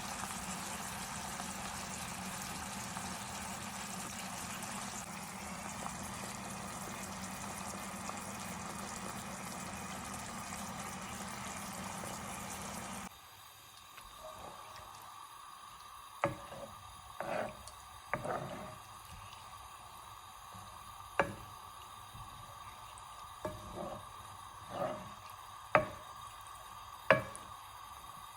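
Steady hiss of liquid cooking in a kitchen pot or pan, with a low hum under it. About thirteen seconds in it cuts off abruptly, and then come a dozen or so scattered sharp clicks and knocks of utensils on cookware.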